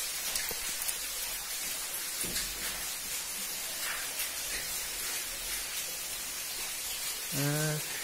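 A steady, even rush of falling water from a waterfall.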